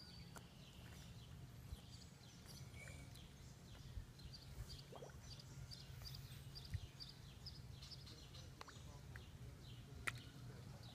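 Near silence: faint outdoor ambience with a steady low hum, and a quick run of faint high bird chirps a few seconds in. A single sharp click near the end.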